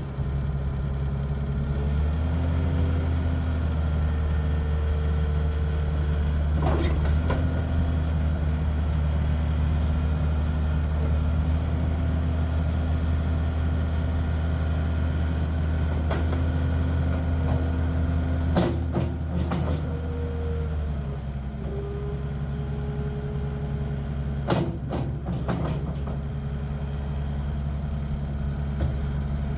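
Takeuchi TL8 tracked skid steer loader's four-cylinder turbo diesel running, picking up revs about two seconds in and settling lower about two-thirds of the way through. A whine comes and goes over the engine, and there are a few short knocks.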